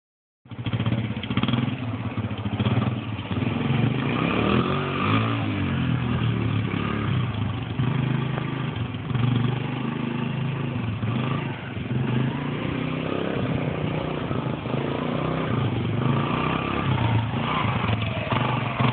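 Suzuki 100 dirt bike engine running as it is ridden, its pitch rising and falling with the throttle.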